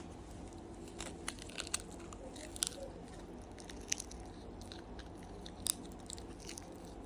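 A pet chewing a hard, crunchy treat: irregular crisp crunches, several louder bites scattered through, over a low steady room hum.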